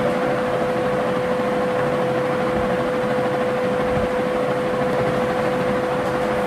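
Steady background machine hum: an even hiss with one constant mid-pitched tone, unchanged throughout.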